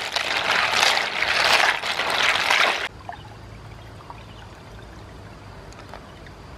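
Water swishing and snail shells clattering as a pan of freshwater snails is scrubbed by hand in pond water. About three seconds in it cuts off abruptly to a faint low hum with a few soft ticks.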